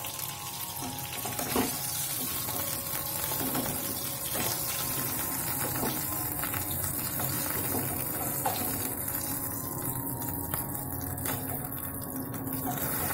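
Fish pieces sizzling in a little hot oil in a nonstick pan, with a few sharp clicks of a metal spatula against the pan as the pieces are turned and lifted out.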